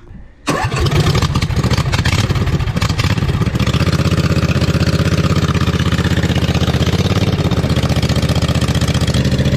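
Newly installed Briggs & Stratton V-twin engine on a John Deere Z425 zero-turn mower, run with no muffler fitted. It catches suddenly about half a second in and runs loud and steady with a fast, even exhaust pulse on its first test run.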